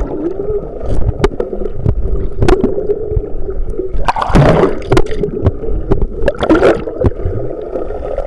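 Pool water sloshing and gurgling right at the microphone, with many irregular knocks and two louder rushes of water a little past halfway.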